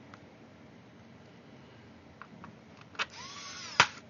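Electric screwdriver whirring for under a second, driving a screw into a laptop's bottom case and stopping with a sharp click. A few faint clicks of handling come before it.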